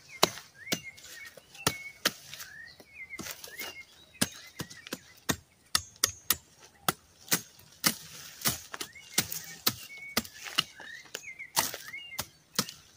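Machete chopping dry brush and weeds: a long run of sharp cutting strokes, about two a second, with small birds chirping in the background.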